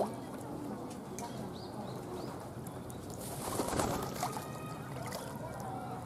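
Pond ambience: steady splashing from a fountain jet bubbling up in the pond, with faint bird calls and distant voices. A sharp click at the very start, and a louder patch about three and a half seconds in.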